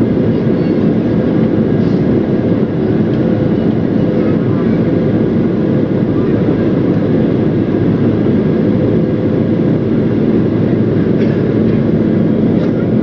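Steady, loud jet airliner noise, engines and rushing air, with a faint steady hum running through it.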